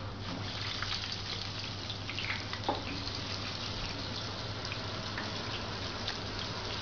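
Battered spiral potato sizzling and crackling in the hot oil of a deep fryer, with scattered sharp pops, one louder about two and a half seconds in. A steady low hum runs underneath.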